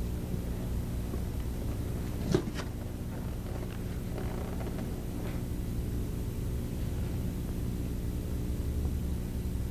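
A steady low electrical hum made of several evenly spaced tones runs under the unmixed set sound. A single short sharp sound cuts in about two seconds in, followed by a few faint movement noises.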